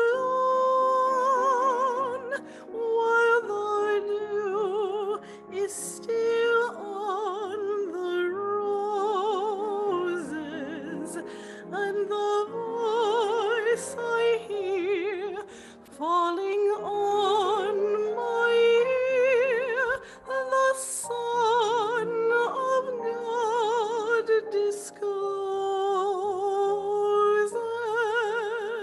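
Female soloist singing a slow sacred song in a classical style with strong vibrato, accompanied by upright piano.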